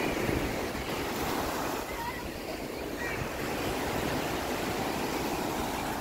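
Surf: small waves breaking and washing up on a sandy beach, a steady rushing sound.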